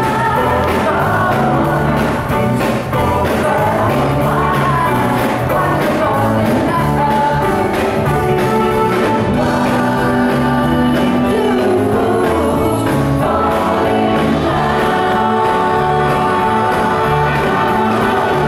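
Live male vocal group singing a doo-wop-style pop song in harmony into microphones, backed by a band with electric guitar and keyboard.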